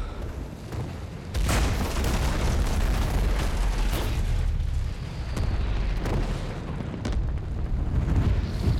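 Film sound effect of a massive fiery explosion: a low rumble, then a sudden loud blast about a second and a half in, followed by continued deep rumbling broken by several sharper bangs.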